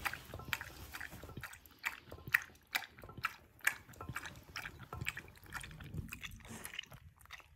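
A 14-year-old dog lapping water from a ceramic bowl: a quick run of wet tongue laps, about three a second.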